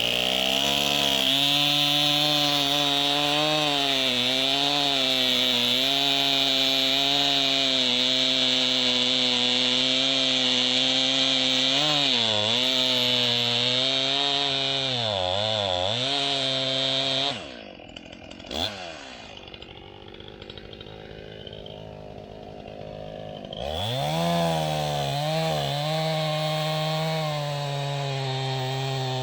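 Two-stroke chainsaw at full throttle cutting through a log, its engine pitch dipping under load a few times. About two-thirds of the way through it drops to idle for several seconds with one short rev, then is throttled back up and cuts again.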